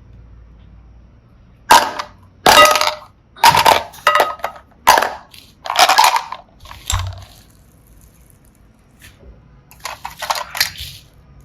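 Small hard objects being handled, giving a string of sharp clatters and clicks: about seven over the first several seconds, then a quick cluster near the end.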